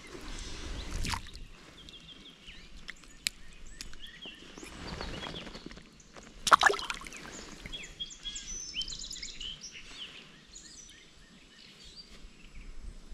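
Water splashing and sloshing as a hand-held brown trout is lowered into a shallow creek and released, with the loudest splash about halfway through. Songbirds chirp throughout.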